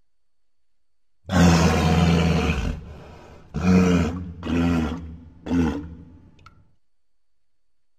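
Triceratops roar sound effect: one long, deep roar about a second in, followed by three shorter roars, each briefer than the last, trailing off.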